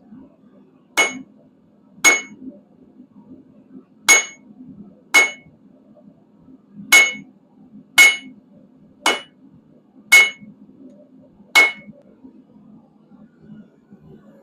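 Blacksmith's hand hammer striking quarter-inch square steel bar stock on an anvil: nine separate blows about a second apart in an uneven rhythm, each with a short bright ring, as the bar's end is rounded off.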